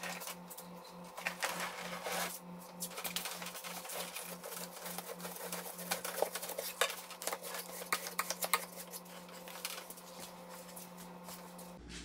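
Irregular metallic clatter, knocks and scraping as the parts of a stripped-down portable air conditioner are handled and brushed. A steady low hum runs underneath and pulses for the first half.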